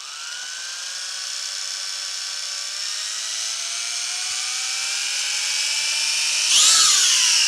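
W606-5 Flanker quadcopter's motors and propellers spinning up on auto takeoff. A whine slowly climbs in pitch and loudness, then jumps sharply louder and higher near the end as the drone throttles up to lift off.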